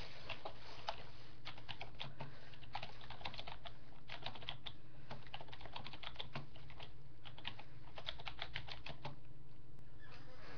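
Typing on a computer keyboard: quick, irregular runs of keystrokes that stop about nine seconds in.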